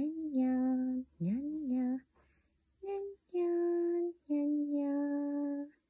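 A woman singing a short wordless singsong tune in long held notes, the first two sliding up into pitch.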